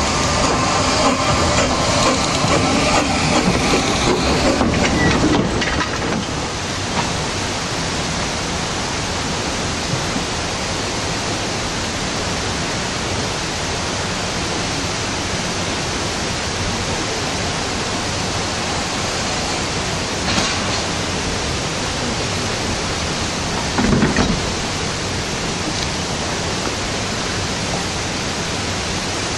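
Narrow-gauge saddle-tank steam locomotive Sir Haydn moving off, louder for the first five or so seconds. It then gives way to a steady, even hiss, with two brief knocks about twenty and twenty-four seconds in.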